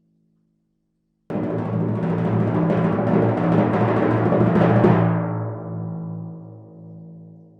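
Timpani roll: after a brief silence, the roll starts suddenly about a second in and swells slightly, then stops about five seconds in and the drum rings out, fading toward the end.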